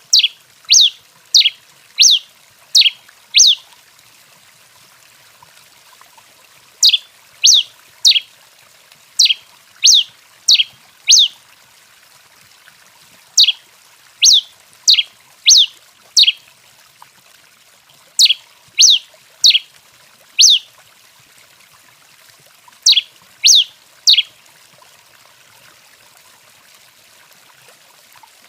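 Pileated finch (tico-tico-rei) giving sharp, high call notes, each a quick downward sweep. The notes come in clusters of three to five, about two a second, with pauses of a few seconds between clusters.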